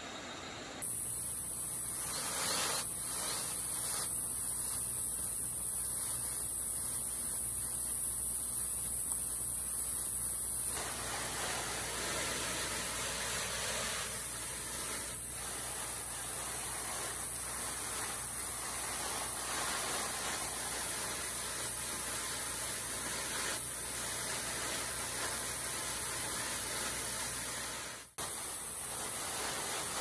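Steady high-pitched hiss of outdoor forest background noise, which changes abruptly with cuts about a second, eleven seconds and twenty-eight seconds in.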